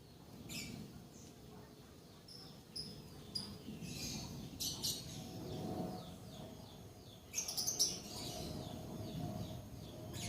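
Birds chirping: short, shrill, high chirps in clusters, some falling quickly in pitch, over a low background rumble.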